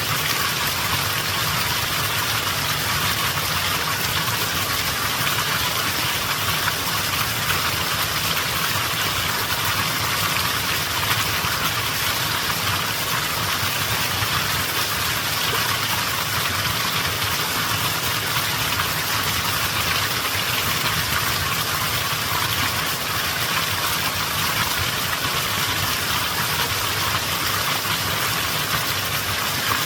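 Mountain stream flowing steadily over rocks: an even rushing of water with a low rumble beneath it.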